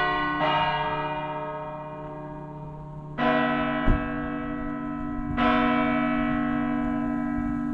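Church bell tolling. Two strikes come close together, then two more a couple of seconds apart, each ringing on with a long, slowly fading hum.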